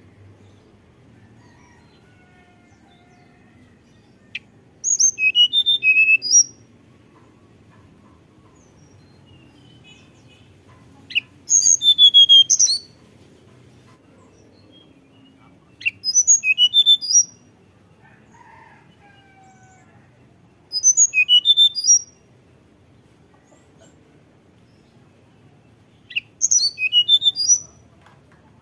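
Hill blue flycatcher singing its fluting song: five short phrases of quick, high whistled notes, each about a second and a half long, coming every four to five seconds.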